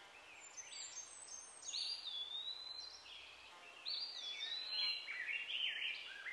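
Wild birds singing and calling: clear, high whistled notes that slide up and down, several voices overlapping, growing busier and louder near the end.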